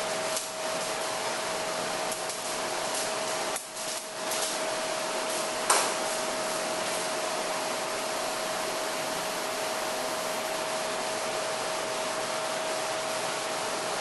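Steady hiss of room noise with a faint steady hum, broken by a few light knocks and then, about six seconds in, one sharp metal clank from the anvil-and-weight-plate implement being handled.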